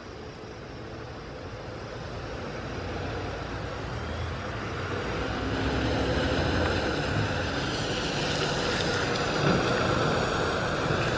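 Embraer 195-E2 airliner's Pratt & Whitney PW1900G geared turbofans on final approach, the jet noise swelling steadily as the aircraft comes closer and then holding loud, with a high whine on top.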